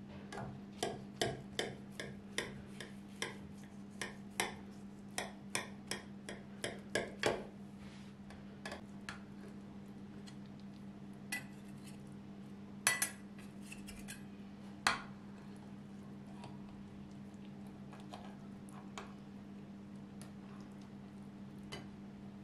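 Knife blade clicking against the bottom of a ceramic baking dish while cutting through a baked zucchini casserole, a quick run of about two or three clicks a second. After a pause, a few louder clinks of a metal spatula against the dish as a portion is lifted out.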